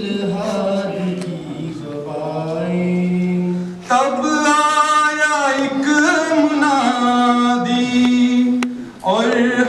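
Men chanting an Urdu nazm (tarana) with no instruments, in long held sung phrases, breaking for breath briefly about four seconds in and again near the end.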